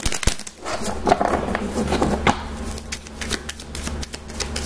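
A deck of tarot cards being shuffled by hand: a run of irregular quick clicks and flicks.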